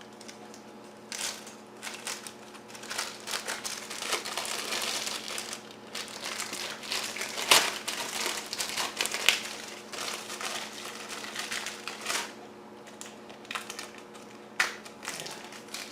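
Plastic packaging crinkling and crackling in irregular bursts as it is pulled and crumpled off a new walker.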